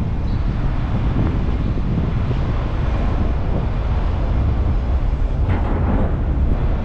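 Steady low rumble of road and wind noise from a car driving, picked up by a GoPro, with a brief hiss about five and a half seconds in.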